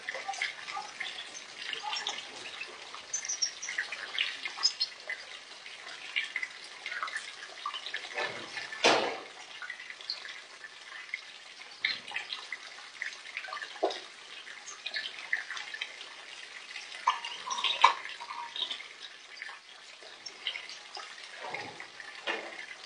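European goldfinches splashing as they bathe in a shallow tray of water: a constant patter of many small, quick splashes from flapping wings. Louder splashes come about nine seconds in and again near eighteen seconds.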